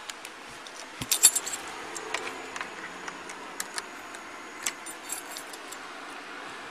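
Keys jangling with the wearer's movement: a burst of metallic jingles about a second in, then scattered light clinks, over a steady hiss of wind and camera noise.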